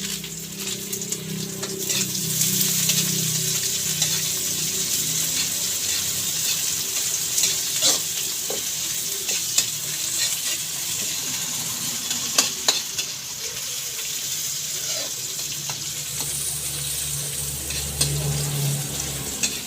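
Chopped garlic and onion sizzling in hot oil in a pan while being sautéed, with a utensil stirring and clicking against the pan now and then.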